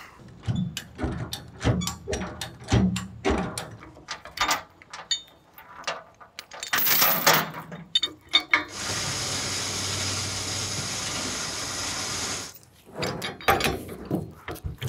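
Irregular metallic clicks and clanks from chain and rigging being worked on a log trailer. Then, about nine seconds in, a small motor runs steadily for about four seconds before the clanking resumes.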